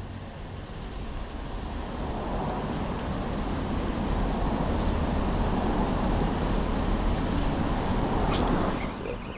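Road vehicle passing, a rumble and tyre noise that build over several seconds and then fall away sharply near the end, with one sharp click just before.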